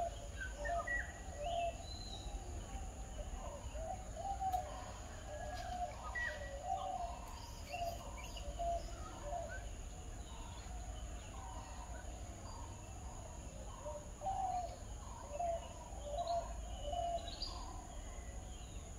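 Birds calling: a short mid-pitched note repeated over and over, with scattered higher chirps and whistles, over a low steady background rumble.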